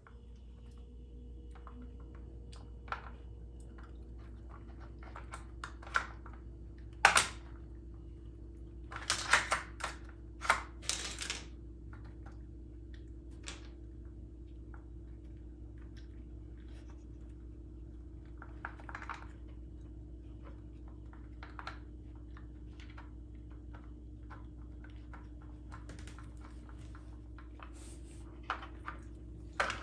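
Plastic Dog Brick puzzle feeder clicking and clattering as a puppy noses its sliding blocks and lift-off lids for kibble, along with chewing. The clicks come scattered, with the loudest clusters a quarter of the way in and again near the end.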